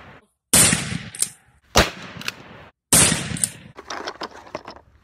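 Three gunshots about a second apart, each with a short reverberating tail and a fainter sharp crack after it.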